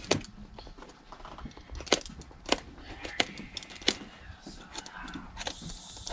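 Sharp snaps and clicks at irregular intervals, about six in all, as a hand tool cuts and pops through the welt stitching of a Goodyear-welted leather shoe.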